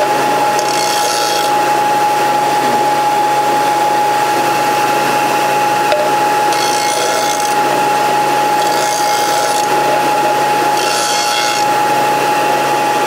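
Porter-Cable bench disc sander running with a steady whine, with four short bouts of grinding hiss as the cut end of a piece of steel stock is pressed against the spinning disc.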